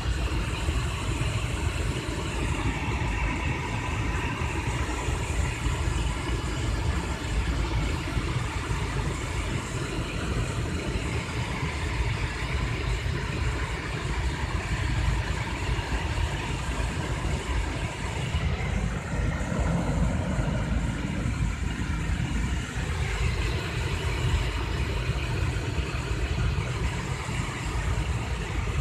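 D&S IQ Soft Touch 2.0 automatic car wash heard from inside the car's cabin: a steady rumbling wash of sprayed water and running wash machinery over the car.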